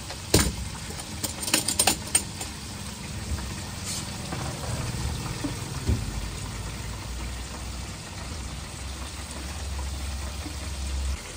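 Stainless steel soup pot lid clinking as it is lifted off: a few sharp metallic clicks in the first two seconds. Then a ladle scoops meatballs from the broth, with a light knock about six seconds in, over a steady low rumble.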